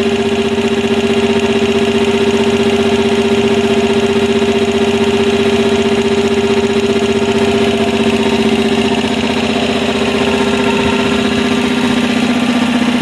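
Elgi 5 hp twin-cylinder reciprocating air compressor running under its electric motor, a loud, steady, even drone as it pumps the tank up toward its 10 kg cut-out pressure.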